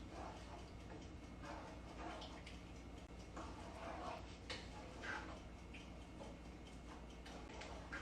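A spoon stirring diced-tomato sauce in a pot: faint, irregular light clicks and soft scrapes.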